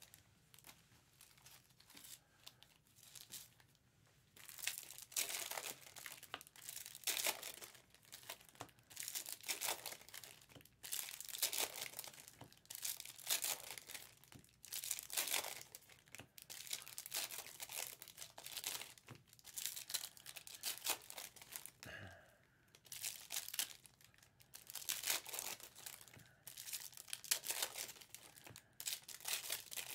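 Foil-lined wrappers of 2023 Topps Chrome Cosmic baseball card packs crinkling and tearing as packs are ripped open and handled. The sound comes in repeated bursts every second or two, starting a few seconds in.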